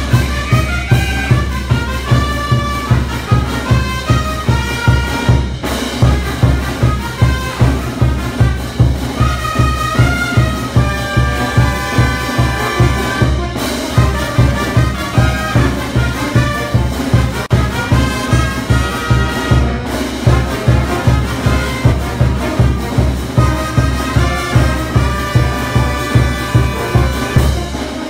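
Andean folk dance music: a steady drumbeat under a melody played on wind instruments.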